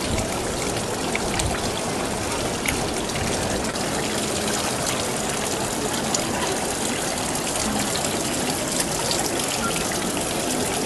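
Steady splashing of water pouring from a marble fountain's spouts into its basin.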